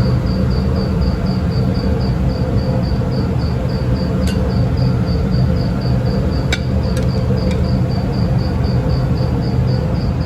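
Steady, loud low hum of a ship's machinery, with a high chirp repeating evenly a little over three times a second and a few sharp clicks.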